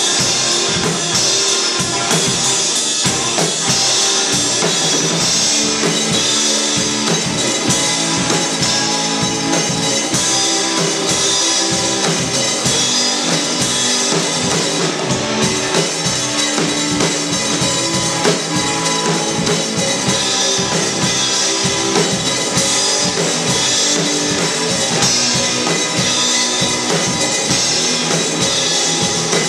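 A rock band playing live: two electric guitars over a drum kit, with a steady beat of kick drum and snare hits.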